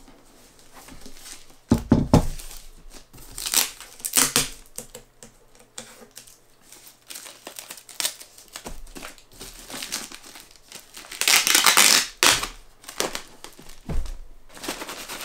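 Plastic wrapping being peeled and crinkled off a boxed NAS unit in irregular bursts, the longest and loudest crinkle coming about eleven seconds in. A dull thump about two seconds in and another near the end as the wrapped unit is handled.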